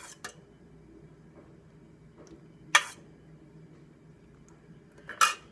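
Spoon knocking against a cooking pot while tomato sauce is ladled: a light knock just after the start, a louder sharp knock near the middle, and a short scraping clatter near the end, with quiet between.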